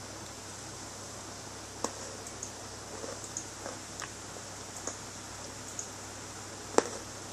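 Scattered small clicks and taps over a steady hiss, with one sharper click near the end.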